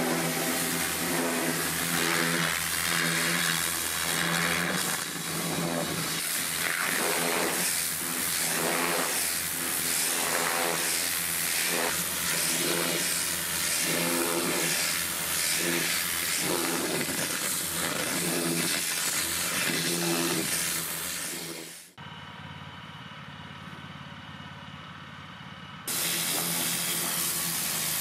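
Pressure washer jet blasting the bark off a log: a loud, steady spray hiss with a drone underneath, swelling and fading about once a second. Near the end it is quieter for about four seconds, then returns.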